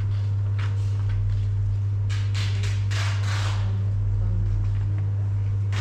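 A steady low hum, with a few brief faint rustles about two to three seconds in.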